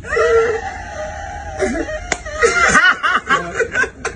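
A group of men laughing loudly, opening with a long high-pitched shriek of laughter and breaking into bouncing laughter near the middle. A single sharp smack sounds about two seconds in.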